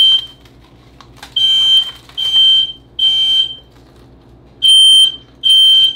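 Smoke alarm sounding, loud high-pitched beeps about half a second long in the three-beep alarm pattern: one beep, then three in a row, a pause, then two more. It is set off by smoke filling the kitchen.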